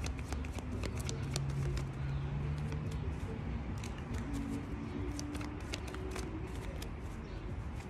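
A deck of tarot cards being hand-shuffled: many quick, light clicks and snaps of cards slipping against each other, over a steady low hum in the background.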